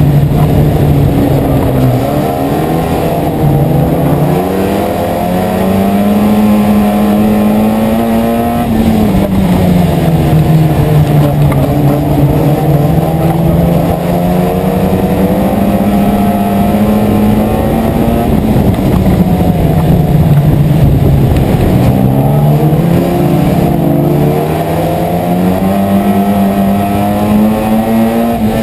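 Euro Rod race car's engine running hard in a race, its pitch climbing as it accelerates and dropping as it lifts off, several times over. Heard from a camera mounted on the front of the car.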